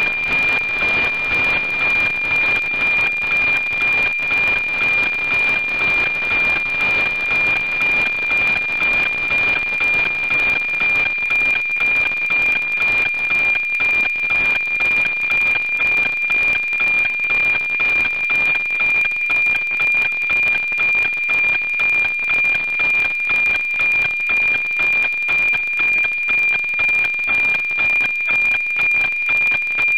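NOAA-19 weather satellite's APT image signal on 137.100 MHz, FM-demodulated by an SDR receiver: a steady high-pitched tone over radio hiss, pulsing in a quick, even rhythm as each line of the picture is sent.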